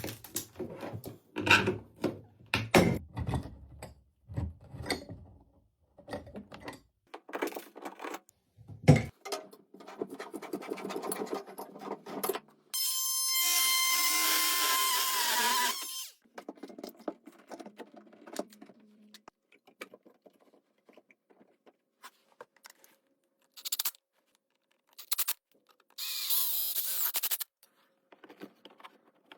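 Tools at work on bathroom plumbing: scattered knocks, clanks and scrapes, a power tool running for about three seconds midway, and again briefly near the end. The sound is close and boxy, as in a small room.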